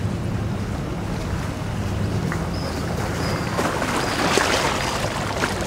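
Boat engine idling with a steady low hum, with a brief noisy rush about four seconds in.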